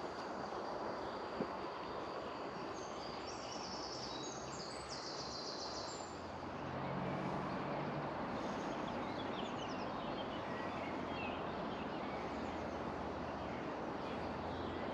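Outdoor ambience: a steady rushing background with small birds chirping, most clearly a few seconds in.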